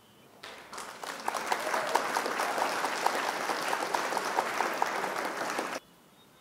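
Applause sound effect, a dense patter of clapping that starts about half a second in and cuts off abruptly near the end, played as the quiz answer is revealed.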